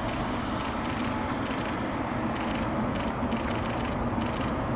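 Boeing 777-200ER's twin turbofan engines running at low power as the airliner taxis: a steady rumble with a faint whine.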